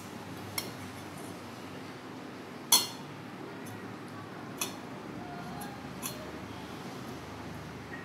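A steel spoon clinking against a glass mixing bowl four times, the sharpest clink about three seconds in, over a low steady hiss.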